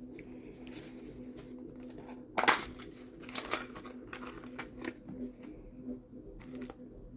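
Small handling noises, soft rustles and light taps, with one sharp click about two and a half seconds in, over a steady low hum.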